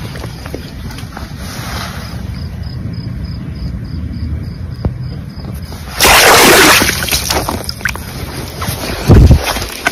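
Steady low rumble of wind on the microphone, then about six seconds in a loud burst of water splashing as a hand plunges into shallow water to grab a small eel-like fish, fading over a second or so, with another loud low thump of water near the end.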